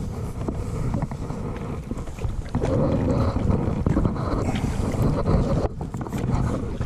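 Wind buffeting the microphone on a kayak out on open water, a steady rumbling noise with scattered light clicks and knocks.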